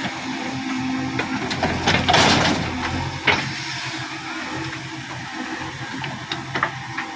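JCB 3DX backhoe loader's diesel engine running steadily under hydraulic load as the backhoe works, with several sharp clanks and a short rushing burst about two seconds in as a bucket of wet soil drops into a tractor trolley.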